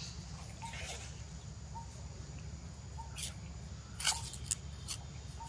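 Outdoor ambience: a faint short call repeating about once a second, with a few sharp clicks and rustles, the loudest about four seconds in, over a steady low rumble.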